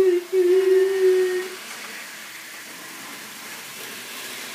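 A voice humming a train-horn toot right after the train's departure is announced: one steady held note, broken once briefly, lasting about a second and a half. Then only faint steady background noise.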